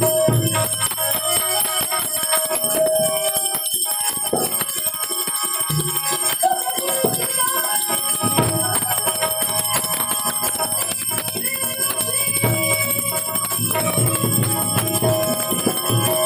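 Devotional harmonium music: sustained harmonium chords under a constant high metallic ringing, with a man's voice singing at times.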